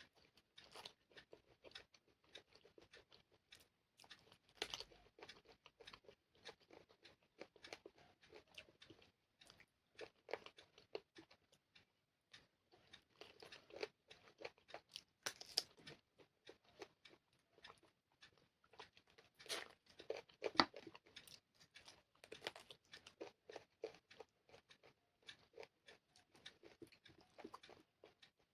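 Close-miked chewing and mouth sounds of someone eating chicken curry with rice: a steady run of small wet clicks and crunches, with louder bites now and then, the loudest about twenty seconds in.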